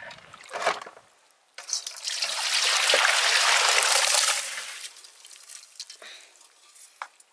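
A rush of water starting suddenly about a second and a half in, loud for a couple of seconds, then fading away, with a few small knocks around it.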